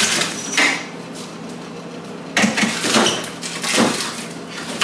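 Household handling noises: about four short bursts of scraping and rustling, as a door or drawer slides and items are moved about.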